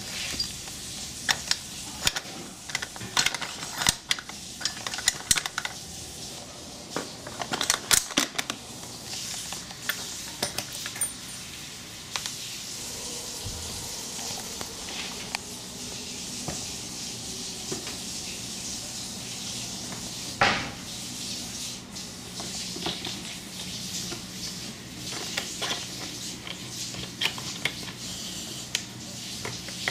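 Metal hardware of a boat launching wheel set clinking and clicking as it is handled and fitted: a run of sharp clinks over the first several seconds, then a single loud click about twenty seconds in, over a steady hiss.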